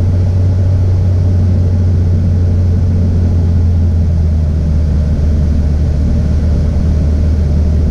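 Cirrus SR22's six-cylinder piston engine and propeller droning steadily, heard inside the cockpit.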